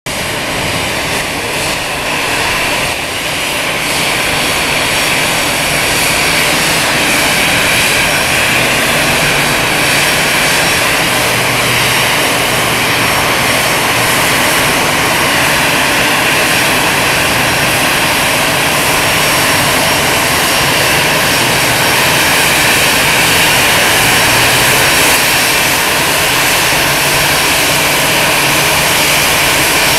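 Airbus A320-200 jet engines running at taxi power as the airliner rolls in toward its stand: a steady high whine over a rushing noise, growing louder over the first few seconds as it nears, then holding steady.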